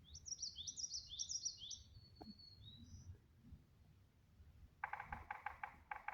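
A songbird sings a quick run of high, repeated chirping notes for about three seconds. Near the end comes a rapid series of about nine short, sharp notes from a woodpecker, over a low background rumble.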